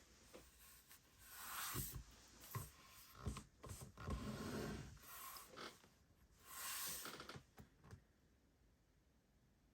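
Faint handling noises: irregular rustling and scraping with a few light clicks and knocks as a model aircraft and its packaging are handled, dying down near the end.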